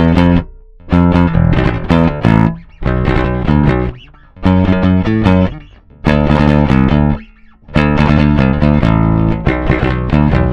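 Electric P-style bass with a 916 Pickups Neo MFD pickup, recorded direct (DI) with no amp, playing short riff phrases of several notes that stop briefly between phrases.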